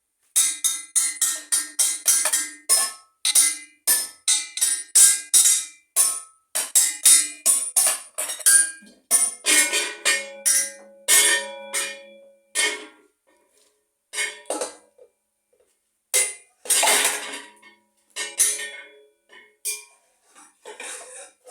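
Small bells struck in a quick, steady peal of about three strokes a second, several pitches ringing together. In the second half the strokes thin out to scattered single strikes with short pauses between them.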